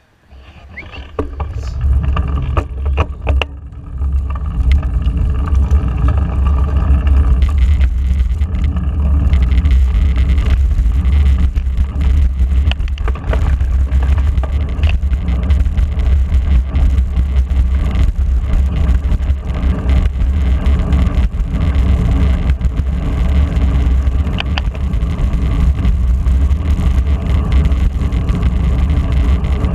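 Wind rumbling on a bike-mounted action camera's microphone as the bicycle pulls away from a stop and rides on; a steady low rumble. A few sharp clicks come in the first few seconds as the ride gets under way.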